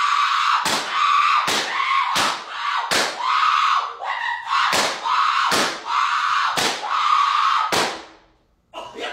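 Loud, harsh screeching repeated about once a second. Each one starts with a sharp crack and holds a shrill tone, and the run stops suddenly near the end.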